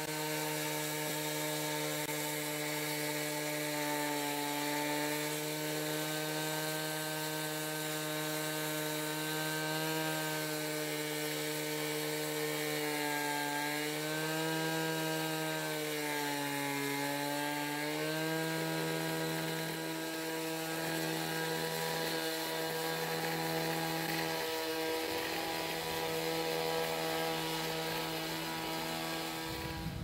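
Concrete saw cutting through a concrete patio slab, its motor running at a steady high pitch. The pitch sags and wavers for a few seconds around the middle as the blade takes more load, then comes back up.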